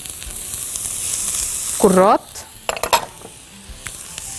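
Chopped celery and leeks sizzling as they sauté in hot olive oil in a pan. The frying hiss grows louder over the first two seconds, then falls away, and a few sharp clicks follow about three seconds in.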